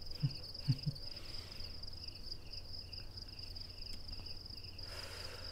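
Crickets chirping steadily: a continuous high trill with a lower chirp repeating about two or three times a second. A couple of faint low knocks come in the first second, and a soft rush of noise rises near the end.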